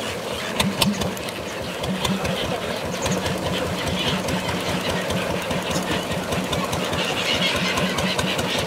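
Motorboat engine running steadily with a rapid, even chugging beat.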